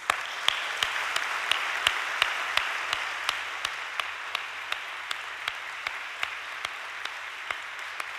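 Congregation applauding in a large room, starting suddenly. One person's hand claps close to the microphone stand out in a steady beat of about three a second. The applause eases off slightly towards the end.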